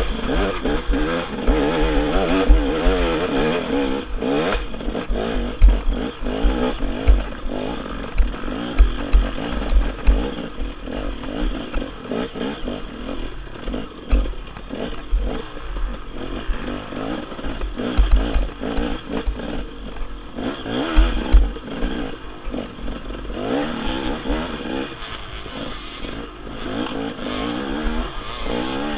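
Dirt bike engine revving up and down as the rider works along a rough trail, its pitch rising and falling continually. Frequent clattering knocks and thumps come through as the bike and helmet camera jolt over rough ground.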